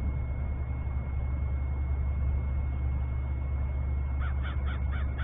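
Steady low rumble of a Cessna Citation business jet's engines as it lands, with a faint steady whine. A few short high chirps come near the end.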